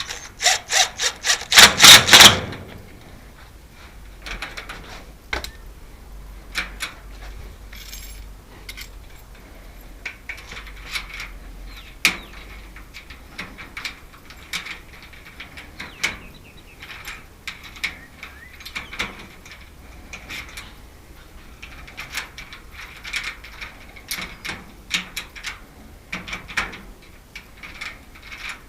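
Tools working on the screws and hardware of a screen door lock. It opens with a loud, rapid run of clicks, about eight a second, lasting about two seconds. Then come scattered taps, knocks and scraping of hand work on the door and lock.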